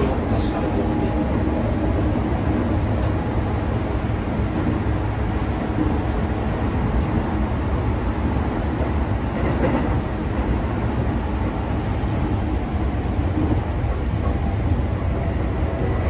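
Toei Shinjuku Line subway train running, heard from inside the carriage: a steady rumble of wheels on rail and running noise.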